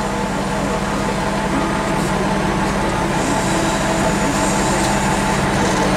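A heavy diesel engine running steadily at idle-like speed, giving an even low drone with a constant hum that does not rise or fall.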